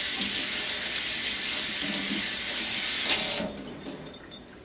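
Kitchen faucet running water over a cloth into a stainless steel sink, a steady rush that is shut off about three and a half seconds in.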